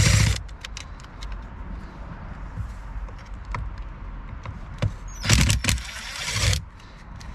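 Hands handling small parts and tools: scattered light clicks and taps, with a louder, noisy scraping stretch lasting just over a second about five seconds in.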